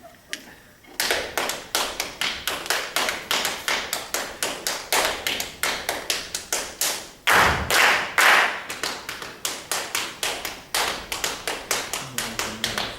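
Rhythmic percussion of glasses and cutlery tapped on a table: sharp taps at about four a second, starting about a second in. A louder, longer noisy burst comes about seven seconds in.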